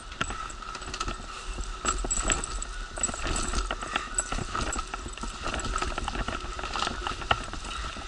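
Wheelchair rolling over uneven pavement, its wheels and frame rattling and clicking irregularly, over a steady high hum.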